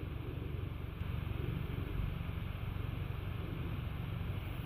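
Outdoor background noise: a steady low rumble with a faint hiss above it.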